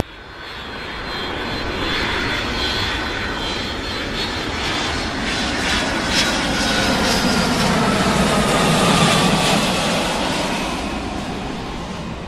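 Twin-engine jet airliner on final approach to land, its engine noise building and then easing off, with a faint whine that slowly falls in pitch as it passes.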